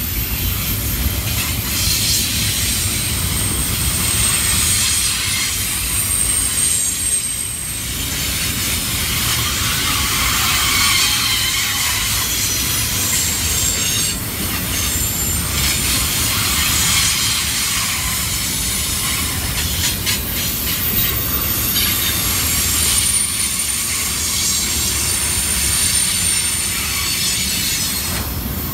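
Double-stack container cars rolling past, their steel wheels rumbling steadily on the rail, with a thin high squeal from the wheel flanges coming and going as the train takes the curve.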